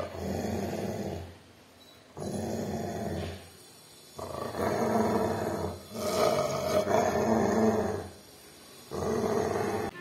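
Play growling in about five bouts of one to two seconds each, from a Rottweiler and a man growling back at it in imitation. The loudest bouts come in the middle.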